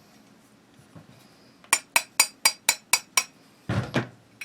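Seven quick, light metallic taps of a small hammer on a pin punch, about four a second, driving the sear pin into a .22 rifle's trigger group. Near the end comes a short, louder handling scrape.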